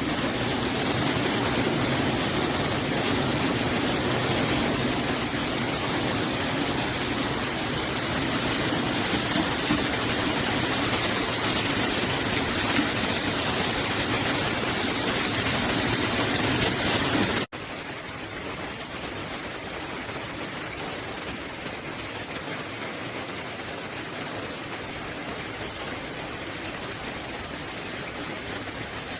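Steady rush of rainwater pouring and splashing down a rain chain. About two-thirds of the way through it cuts off abruptly to a quieter, steady rush of rain.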